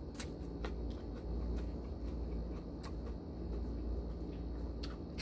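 A man chewing and smacking his lips while eating rice and canned tuna with his hand: scattered short, wet mouth clicks over a steady low background hum.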